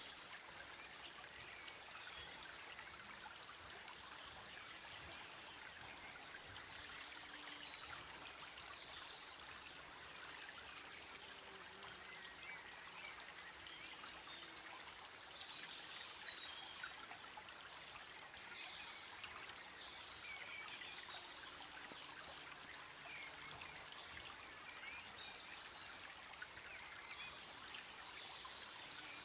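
Faint, steady rush like running water, with scattered faint high chirps.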